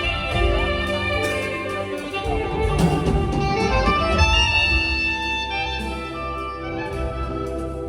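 Saxophone duet with live band accompaniment: sustained melodic notes over a steady bass line.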